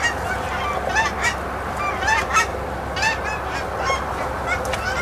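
Geese honking and clucking: many short, sharp honks in quick succession, overlapping through the whole stretch.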